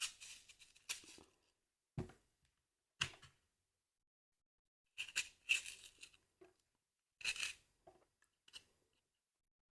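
Crisp raw food being bitten and chewed close to the microphone: about eight or nine short, sharp crunches at irregular intervals, with silence between them.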